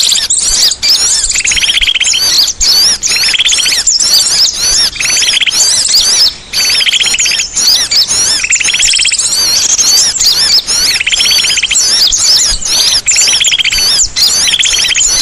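Songbird singing continuously and loudly: a fast run of high whistled notes, broken about once a second by short buzzy trills.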